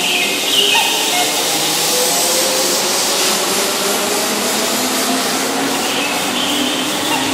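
Keihan 2200-series electric train running along the platform: a steady rumble and hiss of wheels on rail, with faint motor tones drifting in pitch.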